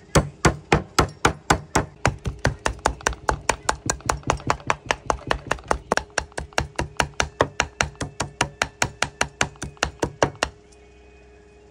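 Steel cleaver mincing frog meat on a wooden chopping block: rapid, even chops at about five a second that stop shortly before the end.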